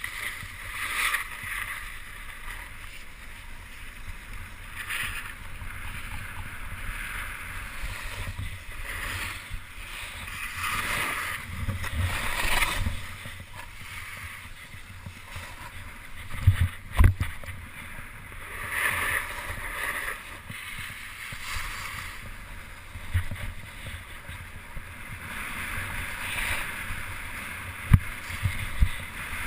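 Snowboard sliding and scraping over snow, with wind rushing over the microphone in uneven swells. There are a few sharp low thumps about halfway through and again near the end.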